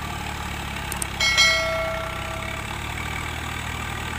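Tractor diesel engine idling steadily. About a second in, a single metallic clang rings out and fades over about a second.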